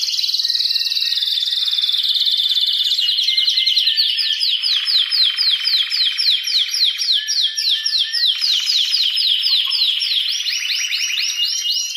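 Male domestic canary singing a loud, excited breeding-season song. It opens with rapid trills, changes about four seconds in to a run of repeated down-slurred notes at three to four a second, and returns to faster trills near the end.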